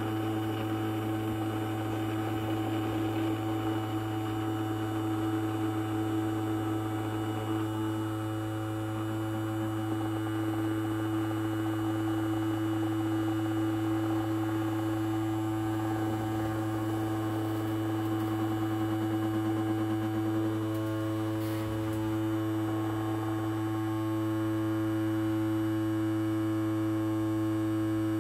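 Ultrasonic cleaner running its cleaning cycle: a steady electrical buzzing hum. A few extra tones join the buzz about three quarters of the way through.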